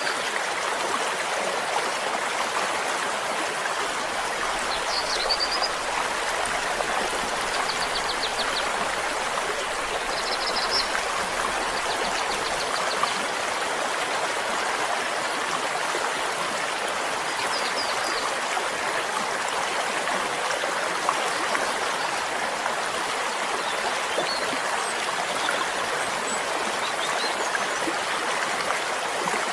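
A stream flowing steadily, its water rushing and babbling evenly throughout, with a few faint high chirps now and then.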